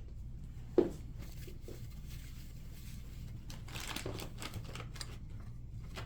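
Plastic parts and screws of a toy paintball gun being handled during assembly: one sharp knock about a second in, then scattered light clicks and rattles, over a steady low hum.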